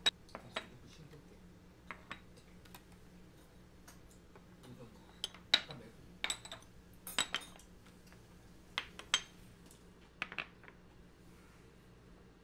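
Small ceramic side dishes set down one after another on a hard tabletop and lifted off a tray: a scatter of sharp clinks and knocks, the loudest about halfway through.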